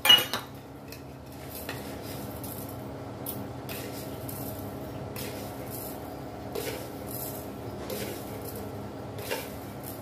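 A sharp clink of metal kitchen utensils right at the start, then a steady low background with a few soft clinks of utensils.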